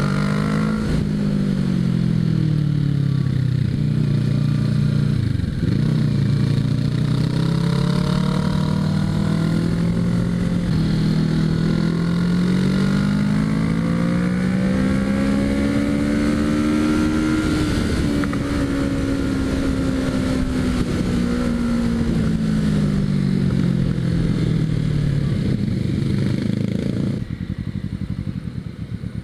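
Motorcycle engine running at riding speed over a steady rush of wind. The engine note dips about five seconds in, climbs slowly to a peak over the next twelve seconds or so, then eases back down.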